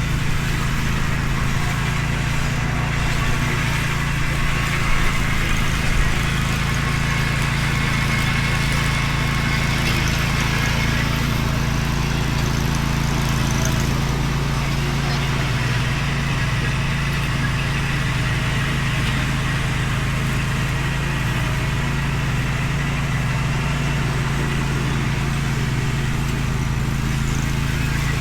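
Zero-turn mower's engine running at a steady note.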